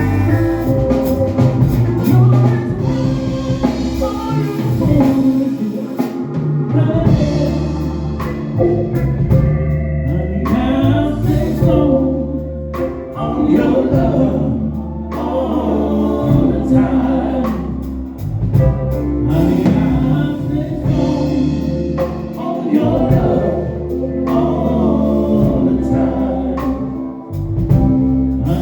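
Live band playing a song with a singer, drums and bass.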